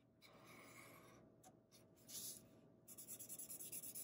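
Black Sharpie permanent marker drawing on a sheet of paper, faint. A few separate strokes of the felt tip come in the first three seconds, then quick back-and-forth strokes at about ten a second from about three seconds in.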